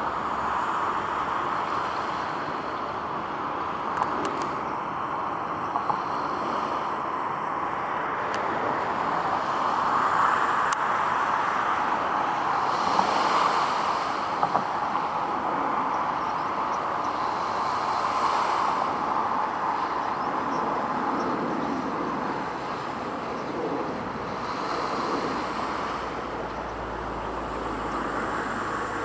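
Steady hiss of road traffic, tyres on the road, swelling and fading slowly as vehicles pass.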